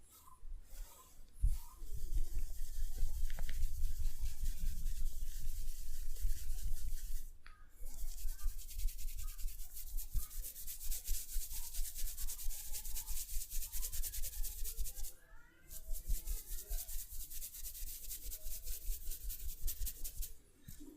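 Hands rubbing briskly in a massage, with rapid, rhythmic strokes. There are three spells, broken by short pauses about a third and three quarters of the way through.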